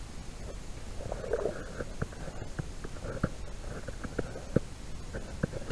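Fishing line being pulled hand over hand up through a hole in the ice to land a pike, giving scattered short clicks and rustling over a steady low rumble.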